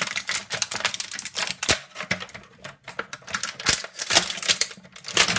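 Thin clear plastic bag crinkling as hands work it open to get at an action figure's parts: a dense, irregular run of sharp crackles.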